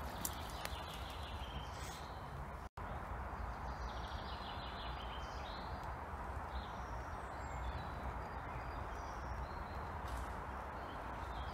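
Faint steady outdoor background noise through a phone microphone, with a few faint short high chirps partway through. The sound cuts out for an instant about three seconds in.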